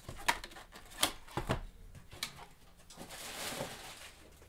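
Cardboard trading-card boxes handled and set down on a table: several sharp light knocks and taps, then a soft scraping rustle about three seconds in.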